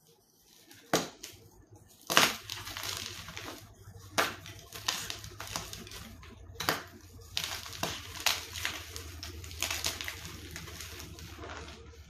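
Crunching, crackling sounds broken by sharp snaps, the loudest about one and two seconds in, over a low steady hum that starts about two seconds in.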